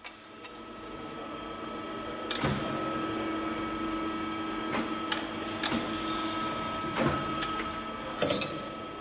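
AMADA Promecam ITPS2 press brake running with a steady hum that builds up over the first couple of seconds. About six sharp knocks and clicks come through it as a sheet-metal blank is handled and set against the backgauge.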